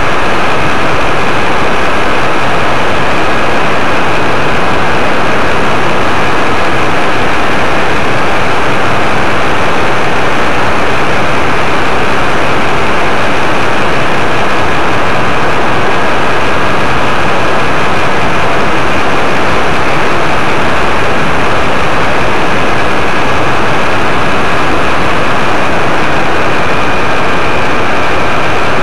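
Paramotor engine and propeller running steadily in flight, very loud and close, with no change in pitch or level.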